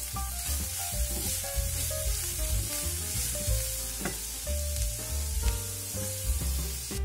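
Shredded cabbage and fried tofu puffs sizzling in oil in a hot frying pan, stirred with a wooden spatula; water is poured into the pan partway through. Background music plays underneath.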